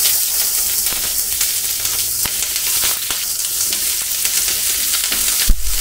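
Sliced onions sizzling in hot mustard oil in a steel kadai, a steady frying hiss right after they hit the oil. A single knock near the end.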